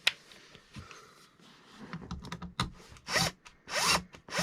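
Hands and tools working on wooden trim: a sharp click at the start, then light rubbing and small clicks, and two short rasping squeaks near the end.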